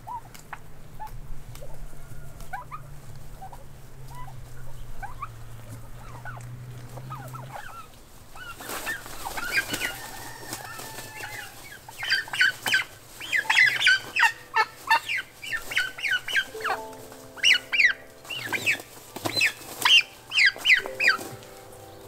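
Domestic poultry calling loudly in rapid runs of short notes through the second half. Before that, faint bird chirps sound over a low steady hum.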